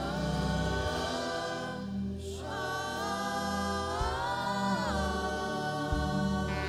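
Slow gospel worship singing: long held sung notes that slide between pitches over a low, sustained instrumental accompaniment.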